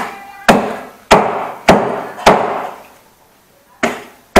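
Frozen chicken being chopped into pieces with a knife: sharp, even chops about every 0.6 seconds, five in a row, a pause of about a second and a half, then the chopping resumes.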